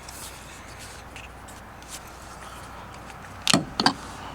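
Faint background hiss, then a quick cluster of sharp clicks and knocks about three and a half seconds in, from handling the electric pressure washer's hose and plastic fittings.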